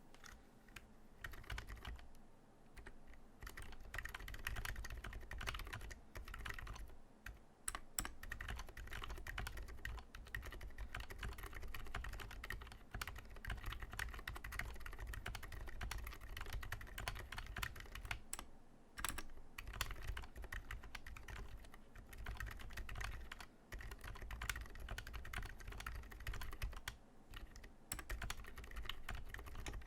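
Fast, continuous typing on a mechanical keyboard with silent switches (Gateron Ink Black housings with MX Silent stems, lubed) in a wooden TADA68 case with ABS keycaps, keystrokes soft and dampened, heard close up. It pauses briefly a few times, with an occasional louder single stroke.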